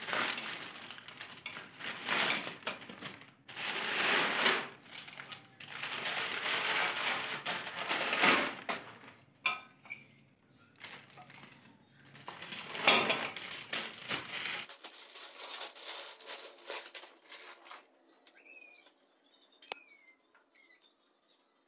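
Packaging being handled, rustling and crinkling in irregular bursts. Near the end it turns quieter and birds chirp in short falling notes.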